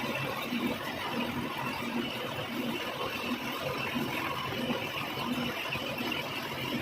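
Metal lathe running, a steady machine noise with a low pulse repeating about every two-thirds of a second.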